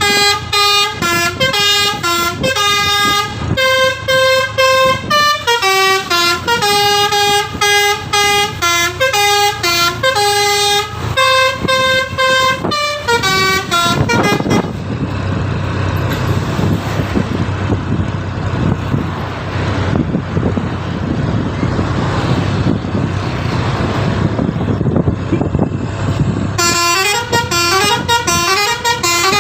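Bus telolet horn, a multi-tone musical air horn, playing a quick tune of short pitched honks. It stops about halfway through, leaving only steady engine and road noise, and starts its tune again near the end.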